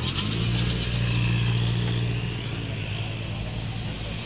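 Rally car engine running at steady revs as the car drives past at close range, growing louder about half a second in.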